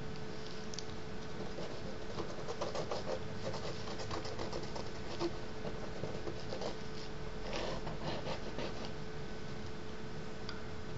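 A thin wooden stick loaded with ink scratching and dabbing on paper in quick, irregular short strokes, over a steady faint hum.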